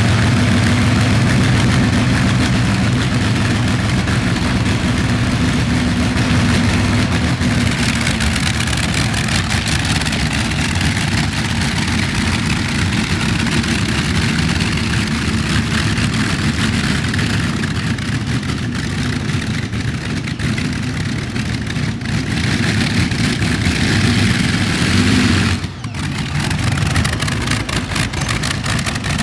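Allison V12 aircraft engines of a tractor-pulling tractor running loud and rough, at idle with a little throttle. The level dips sharply for a moment near the end.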